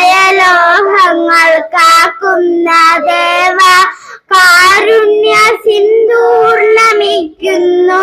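A group of young girls singing a prayer song together into a microphone: long, held melodic phrases with short breaks between lines.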